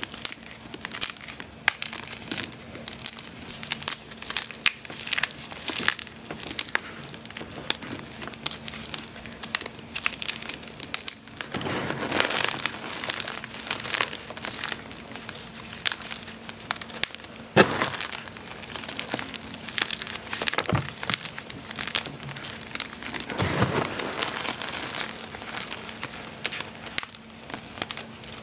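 Gym chalk being crumbled and crushed by hand: a dense run of small dry crackles and crunches as pieces are snapped and pinched between the fingers, with a few louder crunching handfuls and one sharp snap partway through.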